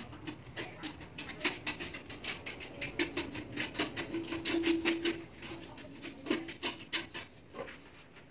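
Steel trowel scraping and chopping cement mortar on a mortar board, a quick run of short scrapes and taps several a second that stops near the end. A short low steady tone sounds in the middle.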